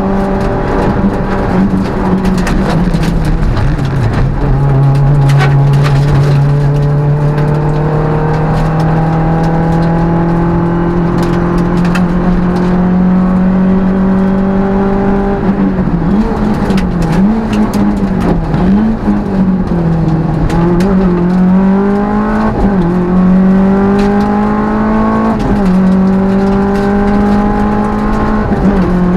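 Peugeot 205 rally car's four-cylinder engine heard from inside the cabin, run hard at high revs. The pitch dips about three seconds in, climbs slowly and steadily for about ten seconds as the car pulls through a gear, then rises and falls repeatedly through a run of bends, with a sharp drop at a gearchange near the end before holding high again.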